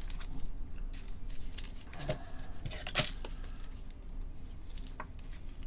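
Trading cards being handled and set down on a table: scattered light clicks and taps with soft rustling.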